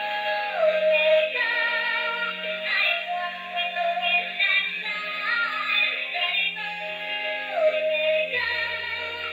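Battery-powered musical unicorn toy playing its electronic tune, a cheerful melody with a synthesized singing voice.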